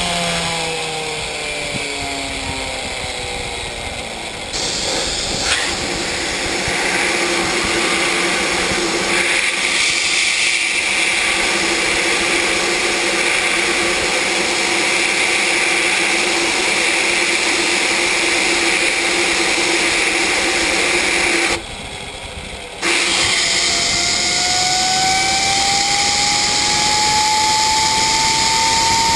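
Homemade turbocharger gas turbine's rotor winding down with a falling whine, then a compressed-air gun hissing into the compressor inlet to spin it. The air cuts out briefly about three-quarters of the way through, and when it comes back the rotor's whine rises steadily again.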